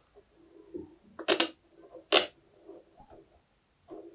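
Soft rubber spiky puffer ball toy being squeezed and handled: two short, sharp sounds about three-quarters of a second apart, with faint low rubbing between them.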